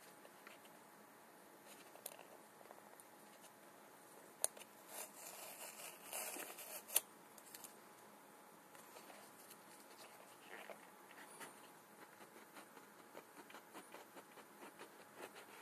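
Hands handling a small cardboard phone box: faint taps and scrapes of fingers on cardboard. A louder scraping rustle, with two sharp clicks, comes about four and a half to seven seconds in.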